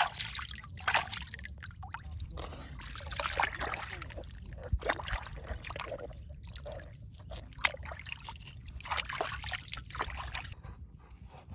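Irregular splashing, sloshing and dripping of river water as a plucked whole chicken and its innards are dunked, rinsed and lifted out by hand.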